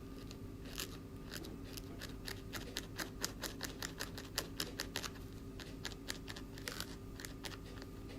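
Small craft scissors snipping repeatedly: a run of crisp clicks, a few per second, thickest in the middle.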